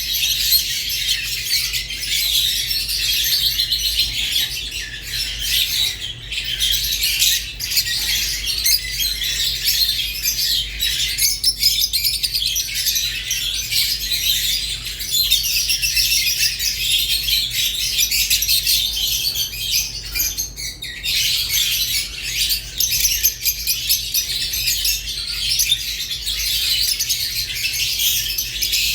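Rosy-faced and Fischer's lovebirds chirping and chattering together in a continuous, dense stream of high calls.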